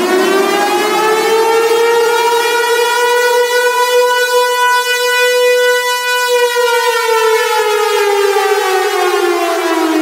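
Air-raid (civil defense) siren sounding one long, slow wail: the pitch climbs to its top about four to six seconds in, holds briefly, then slowly falls away.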